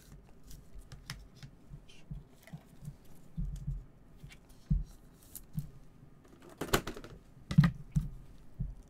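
Irregular light clicks and taps of plastic card holders being handled and set down on a table, with a few louder knocks near the end.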